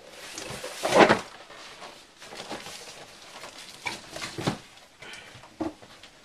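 Packaging and kit pieces being handled and set down: a short, loud rustle or thump about a second in, then scattered lighter knocks and rustles.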